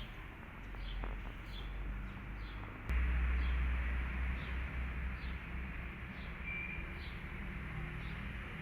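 A small bird chirping again and again, short high notes about every half second, over a steady background hiss. A low rumble comes in suddenly about three seconds in.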